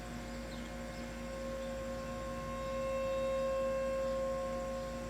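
Outdoor tornado warning siren sounding a steady, even tone that swells about three seconds in and then eases back, as a rotating siren does when it sweeps past. It signals a tornado warning for the area.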